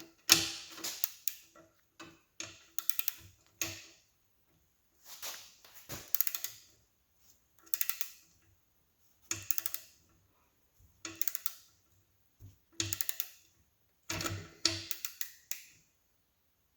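Ratcheting torque wrench clicking in about eight short bursts of rapid ticks, one every second or two, with each back-swing of the handle as a flywheel bolt's locking nut is run down.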